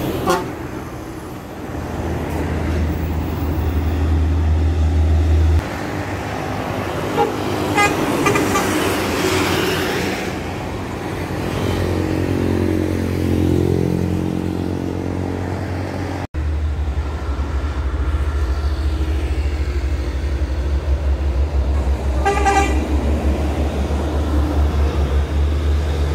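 Bus telolet horn, a multi-tone musical horn, playing a short melody of shifting notes for a few seconds around the middle. Under it is a heavy, steady rumble of road traffic and bus engines.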